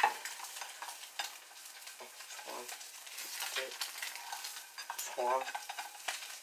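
Butter and an egg sizzling in a frying pan, with a spatula scraping and clicking against the pan bottom.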